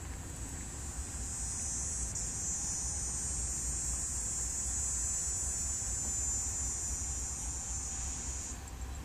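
A cicada's high, steady buzzing song that swells about two seconds in and cuts off sharply near the end.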